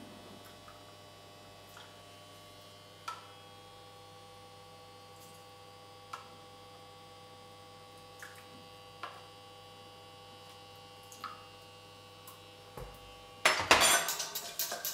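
A metal tablespoon clinking lightly against a stainless steel saucepan as apple juice is spooned onto sugar: about six small, separate taps over a steady electrical hum. Near the end the saucepan is taken by the handle and moved on the glass hob, a louder stretch of scraping and clattering.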